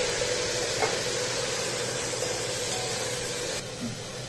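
Onions sizzling and steaming in a hot steel pressure cooker with salt water just added: a steady hiss that drops quieter about three and a half seconds in.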